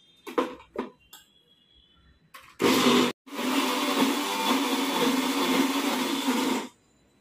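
Kitchen mixer grinder wet-grinding soaked whole green gram and cooked rice into a paste: a short pulse, a brief break, then it runs steadily for about three and a half seconds and stops. Before it starts, a few knocks as the steel jar is handled.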